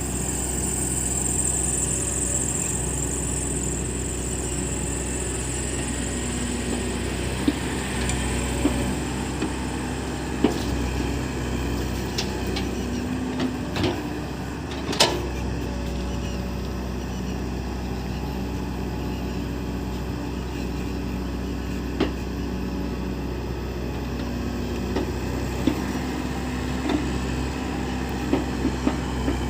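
Backhoe loader's diesel engine running steadily, with scattered short, sharp knocks now and then.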